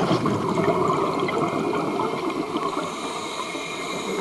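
Air bubbling underwater, a dense bubbling rush that starts strongly and eases a little after about three seconds.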